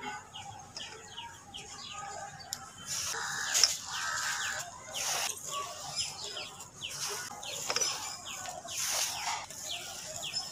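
Dry charcoal and dirt crumbs falling onto a powdery pile in several bursts of grainy noise, the loudest a little over three seconds in. Throughout, birds give repeated short falling chirps.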